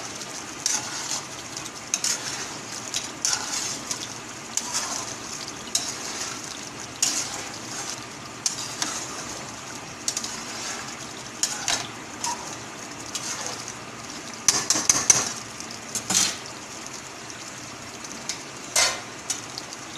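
A metal spatula stirring and scraping chicken korma with potatoes in an aluminium pot, with scattered clinks against the pot's side over a steady sizzle of the simmering gravy. A run of louder clanks comes about fifteen seconds in, and one more near the end.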